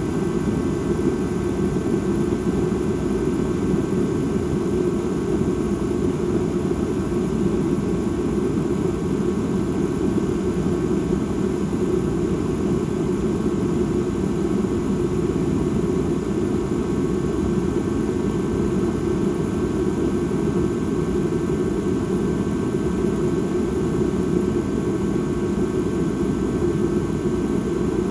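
Dark ambient drone sound: a steady, unchanging low rumble with faint sustained high tones above it.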